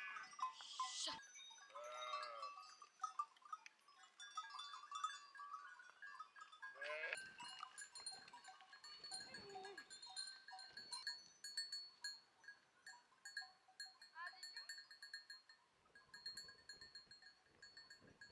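A flock of sheep and goats bleating faintly now and then: a handful of separate calls spread over several seconds.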